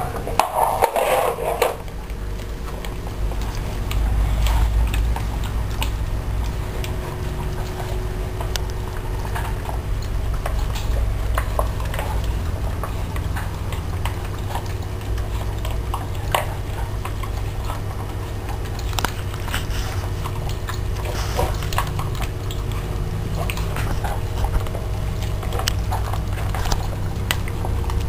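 Dogs eating from their bowls: scattered clinks and crunches of food against the dishes, over a steady low hum. There is a louder noisy burst in the first two seconds.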